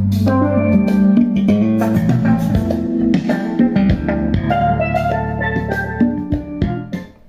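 Music with guitar, bass and drums played through a Sanyo STK417-100 IC power amplifier into wooden loudspeaker cabinets, sounding clean with no hum. Near the end the volume potentiometer is turned down and the music fades out.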